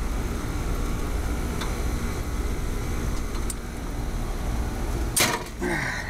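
A steady low rumble, with a couple of faint ticks of tools against the condenser's wiring and one sharp snap of side-cutting pliers about five seconds in.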